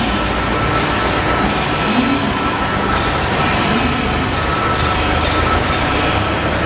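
Guardrail roll-forming machine running: a loud, steady mechanical noise with a constant whine and a high squeal that comes and goes every couple of seconds.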